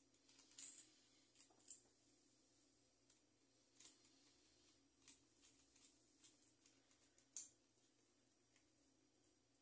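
Faint scattered clicks and scrapes of screws being driven in by hand with a screwdriver while closing up a fan motor, with a faint steady hum underneath.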